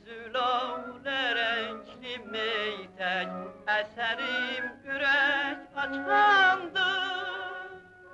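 Operatic singing with strong vibrato in short sung phrases, fading out near the end.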